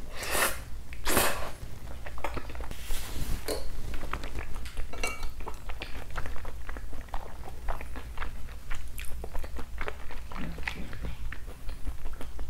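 Close-miked wet chewing of seasoned raw beef (yukhoe): two louder wet mouth sounds as the bite goes in within the first second or so, then many small sticky clicks and squelches of closed-mouth chewing.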